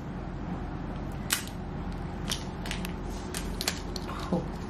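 Scattered light clicks and crackles of clear plastic packaging being handled and pulled off a new Apple Pencil, over a steady low hum.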